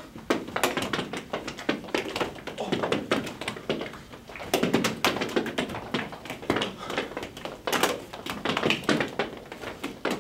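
Many small coloured balls being thrown, caught and bouncing off the floor and wall: a quick, irregular run of taps and thuds.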